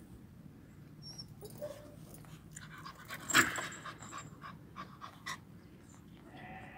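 Black-and-white puppy moving about on its metal chain, with light clinks and scuffs. One sharp, loud sound comes about three and a half seconds in.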